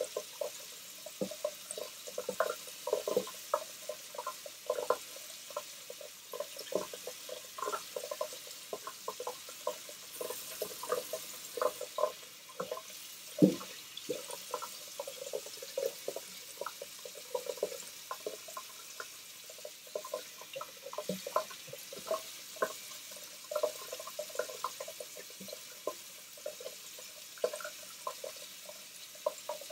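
Greaves wedge straight razor, its edge set on a 1.5K stone, scraping through lathered whiskers in short, crackling strokes. A single louder knock comes about halfway through.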